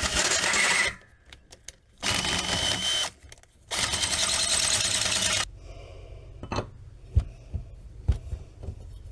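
Electric drill boring out a steel bush rusted solid inside a quad swing arm, run in three bursts of one to two seconds with short pauses. After it stops, a few sharp knocks.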